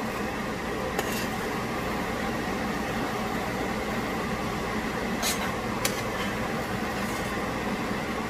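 A steady machine hum runs throughout, with a few light clicks about a second in and twice around five to six seconds in.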